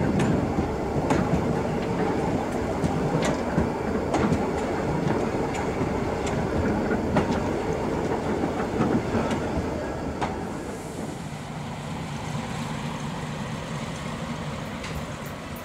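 Diesel train running on old jointed track, its wheels clicking sharply over the rail joints about once a second. The noise drops off after about ten seconds and stays steadier and quieter.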